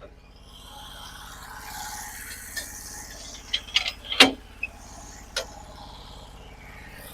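Sawmill engine running steadily under a rushing hiss, with a handful of sharp knocks from the log and mill being worked: a quick cluster a little past the middle, the loudest about four seconds in, and one more a second later.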